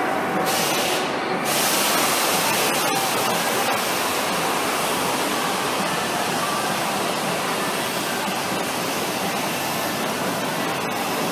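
Steady rushing din of an indoor amusement park, with a helicopter ride spinning.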